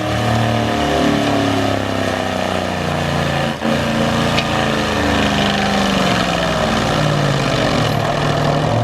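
Takeuchi TL12R2 track loader's diesel engine and spinning FAE forestry mulcher head running under load, its pitch sagging and rising as the carbide teeth grind into wood. There is a single sharp crack about three and a half seconds in.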